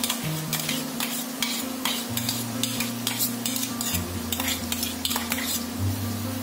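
Chicken curry being stirred in a metal kadai: the chicken and freshly added raw tomato paste sizzle in the hot oil while the stirring scrapes the pan in quick strokes, about two or three a second. The strokes stop near the end.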